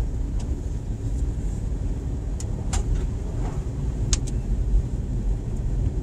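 Steady low rumble of a car driving on a snow-covered road, heard from inside the cabin, with a few brief sharp ticks.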